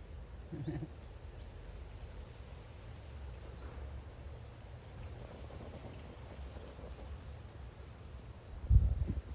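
Steady high-pitched chirring of crickets in the background, with a low rumble underneath. A sharp thump near the end is the loudest sound.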